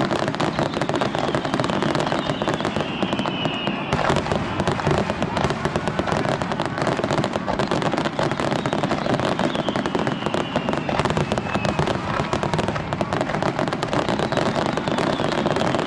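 Fireworks display at full volume: a dense, continuous crackle of rapid bangs, with a few falling whistles over the top.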